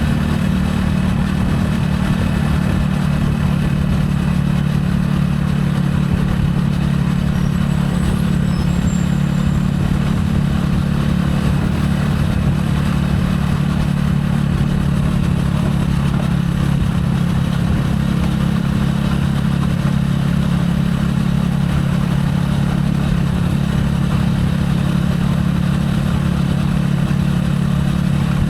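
Gilera AC4 motorcycle's single-cylinder engine running steadily at an unchanging pitch, with no revving, heard close from the rider's camera.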